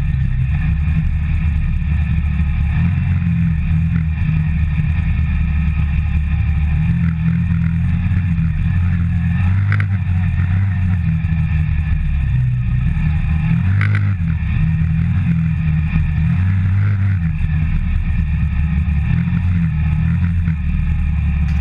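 CFMOTO ZForce 550 side-by-side's single-cylinder engine running steadily under way, heard from the open cab as a continuous low drone. Two brief knocks come about ten and fourteen seconds in.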